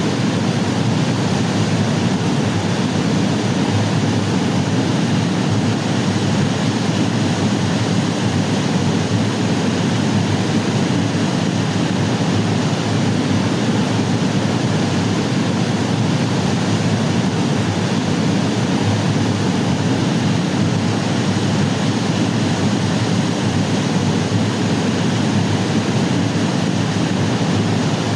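Waterfall cascading, a loud steady rush of falling water.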